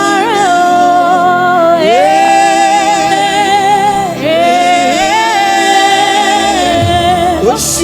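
Gospel music: a woman sings long, held notes with vibrato in a Yoruba praise song over a steady keyboard accompaniment.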